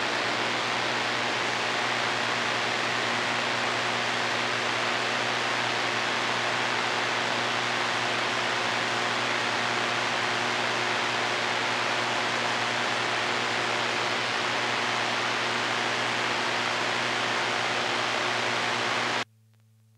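CB radio receiver static with no station on the channel: a steady rush of hiss over a low hum. Near the end the hiss cuts off suddenly, leaving only a faint hum.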